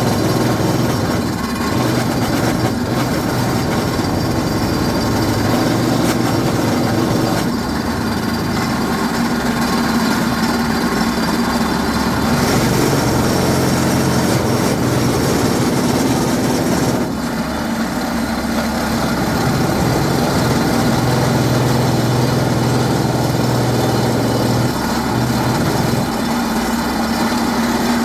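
Drilling rig's engine and machinery running steadily, a continuous loud drone whose pitch shifts a few times as the load changes.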